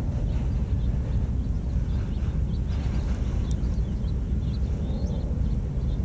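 Steady low outdoor rumble of background noise, with a few faint, short high chirps in the second half.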